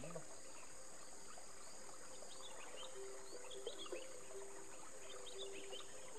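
Insects droning steadily and high, with birds chirping on and off.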